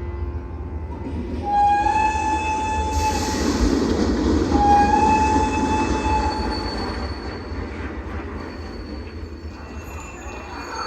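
Recorded train sound effect: a train whistle sounds twice, each a held tone of about a second and a half, over a hiss and a steady low rumble.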